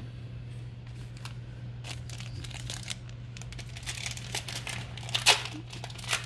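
Crinkling and tearing of a foil trading-card pack wrapper, in irregular rustles that grow denser toward the end, the loudest about five seconds in. A steady low hum lies underneath.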